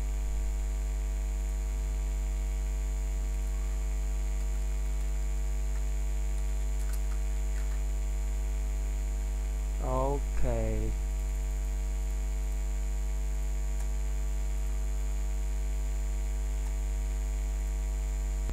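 Steady electrical mains hum with a stack of overtones. About ten seconds in, two brief pitched sounds glide downward in quick succession.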